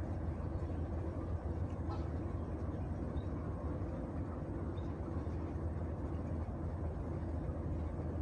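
A steady low engine drone that holds an even pitch throughout.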